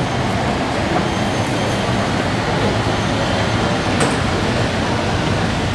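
Steady background noise of a busy underground MRT station concourse, an even hum and hiss of the hall with no voices standing out, broken by one short sharp click about four seconds in.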